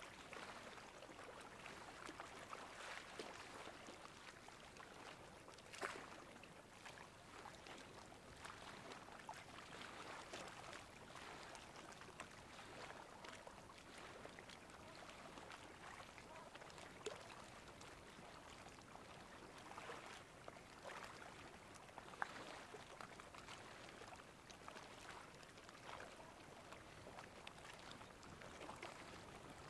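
Faint seawater lapping and trickling at high tide, with a few small splashes.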